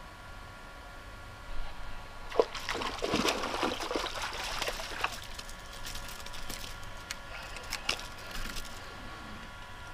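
A pike strikes a wobbler in shallow water: sudden splashing and sloshing at the surface starts about a second and a half in and is loudest for a few seconds, then dies down to smaller splashes and clicks.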